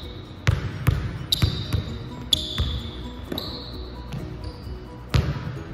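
Basketball dribbled on a hardwood court: a run of bounces, each a sharp thud, with rubber-soled sneakers squeaking briefly on the floor as the player drives in, and one last loud bounce about five seconds in.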